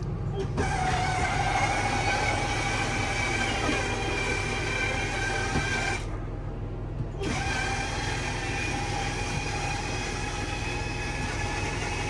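Electric drive motor of a motorhome's main slide-out running as it retracts the long slide into the coach, a steady mechanical hum with a whine over it. The upper part of the whine briefly drops out about six seconds in, then carries on.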